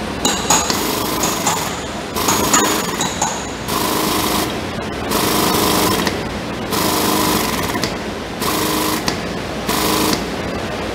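Car frame-pulling machine's power unit running in repeated spurts of about a second each, moving the pulling tower and its chain, with a steady rattle and hum.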